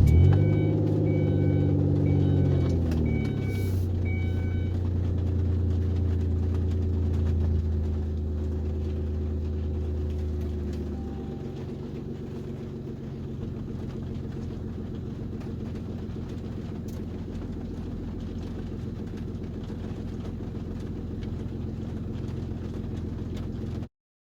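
Car engine starting and idling: it catches with a flare of revs that falls away over the first three seconds, then idles steadily, settling lower about eleven seconds in. A short high beep repeats for the first five seconds.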